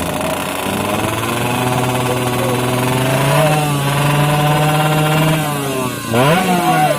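Two-stroke Yamaha F1ZR drag bike engine held at high revs, its pitch creeping slowly upward. About five and a half seconds in it drops, then jumps sharply with a quick throttle blip near the end.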